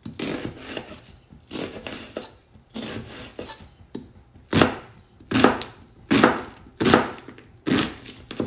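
Chef's knife cutting through a red onion and striking the cutting board in separate strokes: softer slicing cuts at first, then louder crosswise chops about every 0.7 seconds as the onion is diced, with a knife its owner says needs sharpening.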